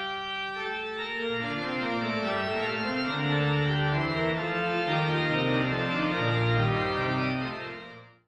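Organ playing slow, sustained chords that move from one to the next, fading out to silence near the end.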